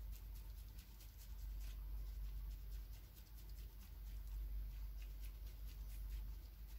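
Faint crinkling and squishing of a disposable plastic-gloved hand pressing minced meat for koobideh kebab along a flat metal skewer, with many small clicks. A steady low hum sits underneath.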